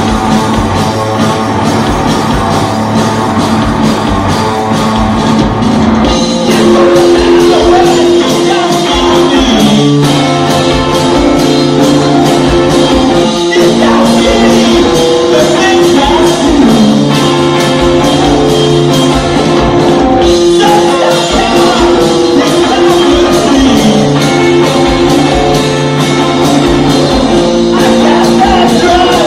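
Live rock band playing loud: electric guitar and drum kit with a sung lead vocal. The music gets fuller and a little louder about six seconds in.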